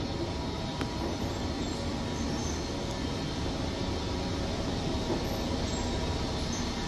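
Hanseon HS200(M) step escalator running under a rider: a steady, loud mechanical running noise with some squealing, which the owner counts as a small fault in a new installation.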